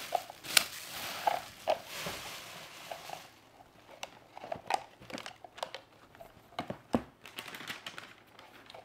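Gift wrapping paper crinkling and a cardboard gift box being handled and opened, with scattered clicks and taps. The crinkling is densest for the first three seconds, then only occasional taps and rustles.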